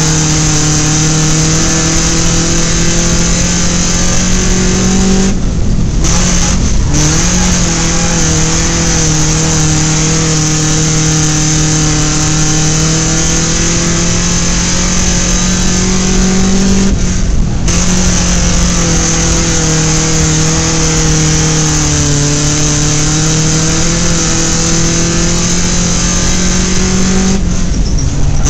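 Dirt-track race car's engine heard from inside the car, running hard with a loud, steady drone. Three times, about eleven seconds apart, the note drops briefly as the throttle is lifted for the turns, then picks up again.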